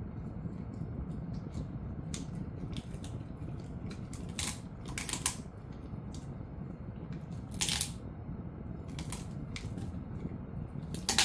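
Jindo-mix dog gnawing a meaty rib bone, with a few sharp crunches as its teeth crack bone and gristle: the loudest about halfway, again later on, and once at the very end. A steady low hum lies underneath.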